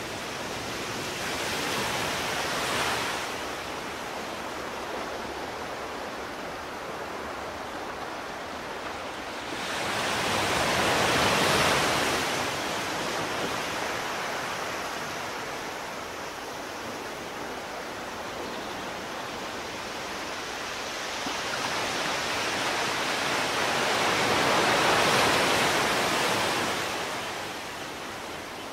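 A steady rushing noise of water that swells louder three times for a few seconds each.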